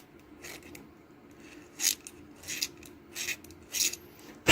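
Small knife scraping carbon deposits off a metal boiler part in about six short, sharp strokes, the last one near the end the loudest.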